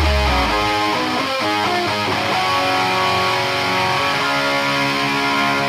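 Rock music track: an electric guitar plays a passage of held, picked notes without drums.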